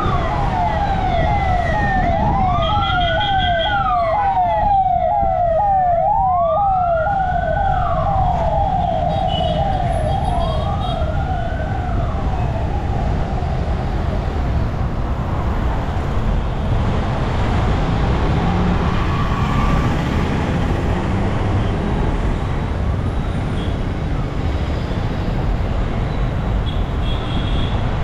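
Emergency-vehicle siren sounding two patterns at once, a fast repeating yelp and a slow wail that rises and falls about every four seconds. It fades out about halfway, leaving steady traffic and road noise from the moving vehicle.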